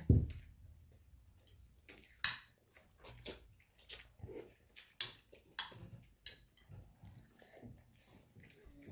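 Mouth sounds of a person eating a forkful of Dan Dan noodles: slurping and chewing, heard as irregular short smacks and clicks.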